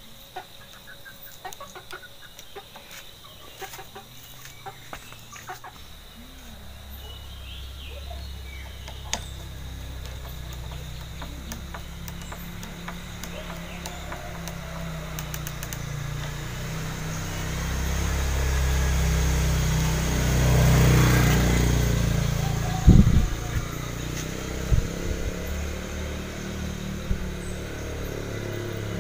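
Chickens clucking among light clicks, then a low engine hum that grows to its loudest about twenty seconds in and eases off, followed by a few sharp knocks.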